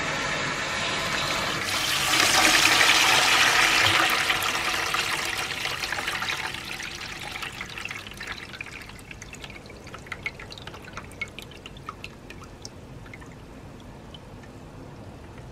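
Water gushing out of a central-heating radiator being flushed with a hose, splashing into a plastic bucket full of black sludgy water. The splashing is loudest about two to four seconds in, then dies down to a gentler churning with scattered small pops and drips as the bucket fills.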